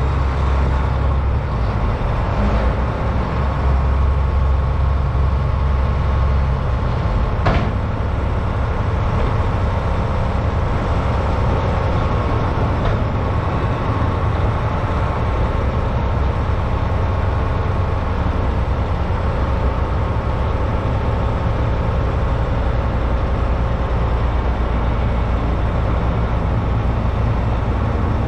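Mack truck's diesel engine running steadily at low speed, with most of its sound low-pitched. A single sharp click comes about seven and a half seconds in.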